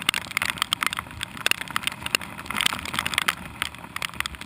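Raindrops ticking on a camera housing mounted on a kayak deck: dense, irregular taps over a low wind rumble.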